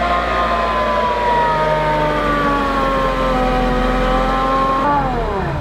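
Supercharged Mazda Miata driven at low speed, its Jackson Racing M45 supercharger whining loudly over the engine. The whine sinks slowly in pitch, then drops quickly near the end as the revs fall.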